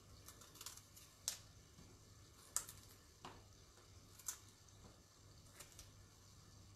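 A raw artichoke being cleaned: its tough outer leaves are snapped and pared off with a small knife, giving a few faint, crisp snaps at irregular intervals over near-silent room tone.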